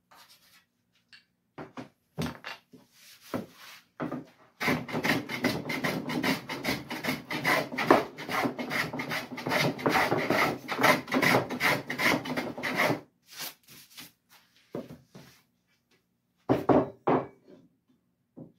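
Hand plane shaving the high spots off a cherry board: about eight seconds of quick, rapid strokes in the middle, with scattered knocks and scrapes before and after as an aluminium straight edge is set against the wood.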